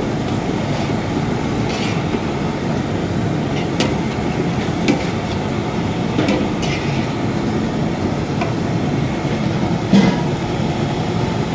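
A steady low rumbling noise, with a few short clinks of aluminium cooking pots and a ladle. Near the end there is a louder knock as cooked dal is poured from one aluminium pot into another.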